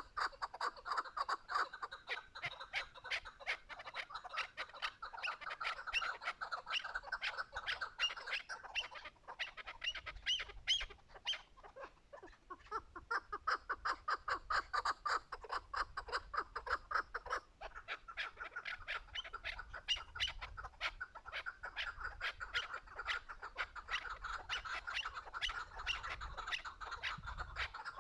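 Chukar partridge calling: a long, rapid run of repeated clucking notes, thinning briefly twice.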